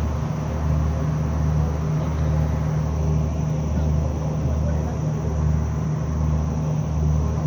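A ship's engine running: a loud, steady low drone that pulses with a short dip about once a second.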